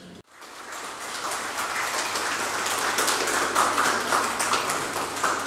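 Small audience applauding, the clapping building over the first couple of seconds and then holding steady.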